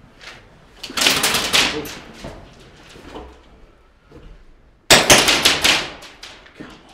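Two bursts of rapid airsoft gunfire, each about a second of fast sharp cracks: the first about a second in, the second, starting abruptly, around five seconds in.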